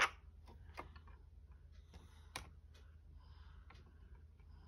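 Faint, scattered clicks of plastic Lego bricks as a child's fingers handle and adjust the pieces of a Lego marble run, with one sharper click about two and a half seconds in.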